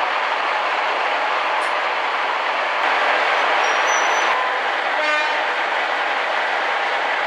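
A Class 55 Deltic diesel locomotive, with twin Napier Deltic two-stroke engines, heard from an open coach window behind it as it runs: a steady loud rush of engine, wheel and wind noise. A few brief high tones sound around four seconds in, and a short pitched note about five seconds in.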